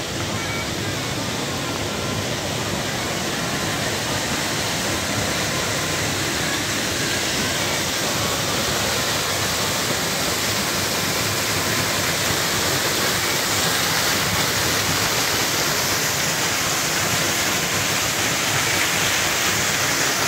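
Waterfall rushing, a steady roar of falling water that grows gradually louder.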